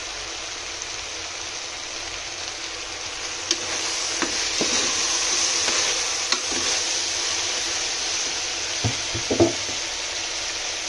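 Mixed vegetables sizzling in oil in an aluminium pressure cooker as they are stirred with a ladle. The sizzle swells through the middle, and the ladle knocks against the pot several times, most sharply twice in quick succession near the end.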